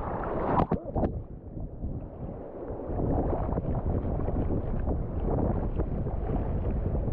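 Shallow sea water sloshing and washing around a camera held at the water's surface, with wind buffeting the microphone; a couple of sharp splashes about a second in.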